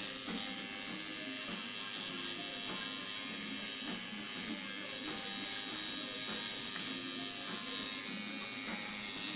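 Coil tattoo machine buzzing steadily as the needle works ink into skin.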